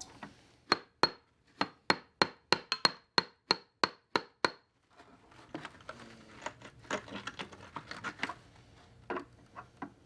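Hand tool chipping at furnace refractory (firebrick) around the heating-element coil: about a dozen quick sharp metallic taps, each with a short high ring, then scraping and crunching from about five seconds in as the material is worked loose.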